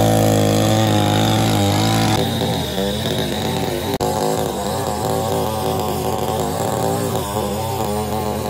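Small petrol engine of a hand-held cutting machine running at high speed. Its pitch drops a little about two seconds in and then wavers up and down as it works.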